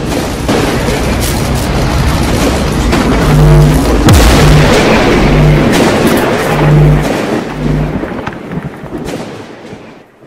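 Cinematic intro sound design: a loud, dense rumble with booming hits and a low tone pulsing on and off in the middle, fading out over the last couple of seconds.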